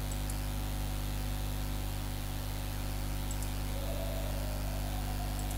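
Steady recording hiss with a low electrical hum underneath, and a few faint ticks.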